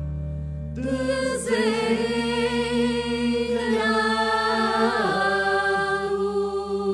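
Music: a singing voice with vibrato enters about a second in, holding long notes over a steady low drone.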